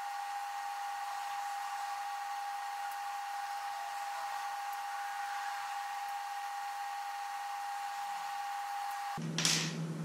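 A small electric motor whines steadily over a hiss, then cuts off suddenly about nine seconds in. A brief loud rush of noise follows, and then a low steady hum.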